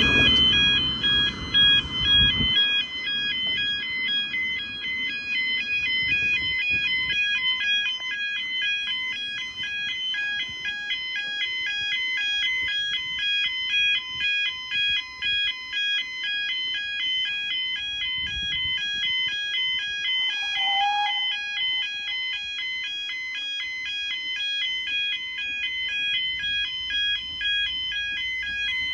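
Level crossing audible warning alarm sounding, a steady repeating two-tone warble that warns a train is approaching and the road is closing. A low rumble is heard in the first two seconds.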